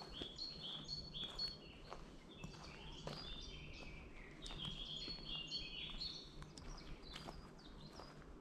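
Songbirds singing in woodland: phrases of short, high whistled notes repeated several times, with a few faint footsteps on the path.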